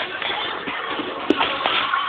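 Five-week-old boxer puppy crying and scuffling about in its pen, with a sharp knock about a second and a half in.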